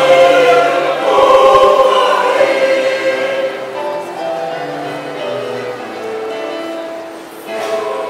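A mixed choir sings an anthem in parts with held, sustained notes. It is loud for the first few seconds, then softer. The voices drop away briefly about seven seconds in and then come back in together.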